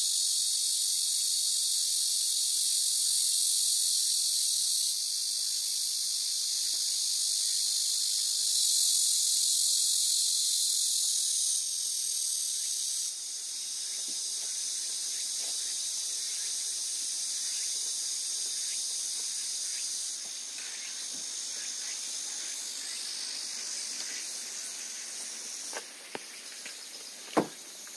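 A loud, steady chorus of insects shrilling high in pitch, dropping in loudness in a few steps. From about halfway, soft clicks and taps from puppies eating kibble out of plastic bowls, with one sharp knock near the end.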